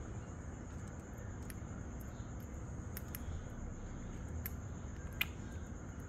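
Lovebirds in a cage making scattered sharp clicks and taps (beaks and feet on bars, perches and seed), about four distinct ones with the loudest about five seconds in, over a steady low hum and a faint high steady whine.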